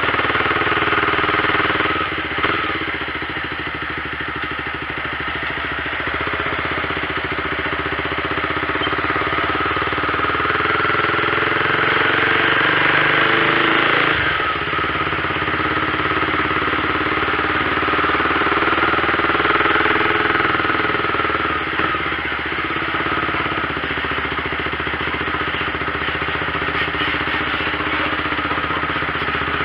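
Mercedes-Benz 1113 truck's six-cylinder diesel engine running with a steady rumble, swelling toward the middle and dropping off suddenly about halfway through.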